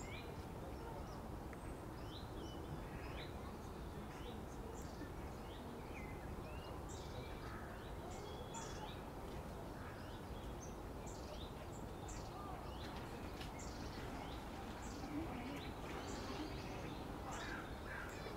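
Outdoor ambience: small birds chirping and calling in short, high notes throughout, over a steady low background noise.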